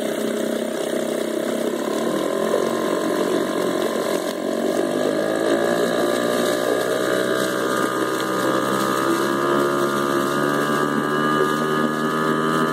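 Yamaha 2 hp single-cylinder two-stroke outboard running under throttle in a test barrel, picking up speed about five seconds in and then holding a steady higher pitch, with water churning from the propeller.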